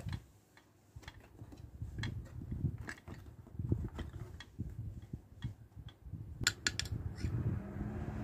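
Small plastic toy furniture pieces clicking and clattering as they are picked up and set down on a cardboard playset, over soft handling noise. A quick run of sharper clicks comes about six and a half seconds in.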